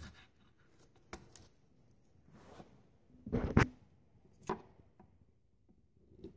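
Scattered plastic clicks and knocks from hands working the ignition coil connector and wiring harness in a car engine bay, with one louder knock about three and a half seconds in.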